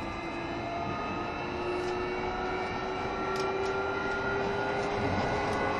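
Interior running sound of a JR Shikoku 7200 series electric multiple unit: rumble from the wheels and rails under a traction-motor whine made of several tones. The tones slowly rise in pitch and the sound grows a little louder as the train gathers speed.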